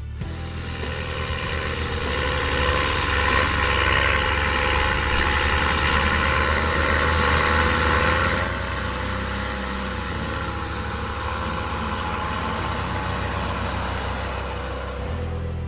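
Heavy engine running steadily, louder for the first half and easing down about eight seconds in.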